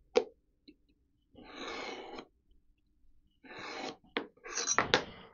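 Steel scriber scratching marks on a steel plate against a square: two short scraping strokes, with a few sharp clicks of tools on the metal near the end.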